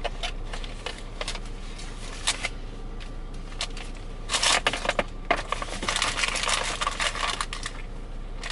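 Clicks and crinkly rustling as a white phone charging cable and loose items are handled inside a car cabin. The rustling is densest from about four seconds in to about seven and a half seconds, over a steady low hum.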